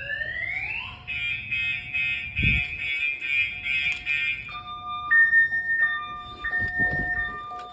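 Viper 3105V car alarm siren going off, set off by a door opening while the system is armed. It cycles through its tones: rising whoops, then a fast warble, then steady high and low tones in turn. A low thump comes about two and a half seconds in.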